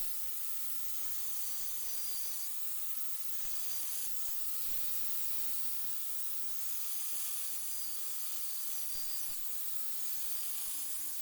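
Steady hiss of a compressed-air spray jet, with a faint wavering whine underneath.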